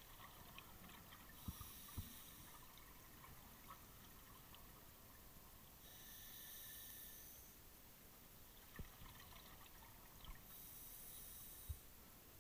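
Faint underwater breathing of a scuba diver on a regulator: three breaths about four and a half seconds apart, each a hissing, bubbling rush, with a few faint knocks in between.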